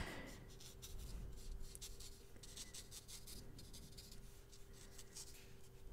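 Faint strokes of a damp paintbrush over paper, activating watercolor pencil. A thin, steady hum sits underneath.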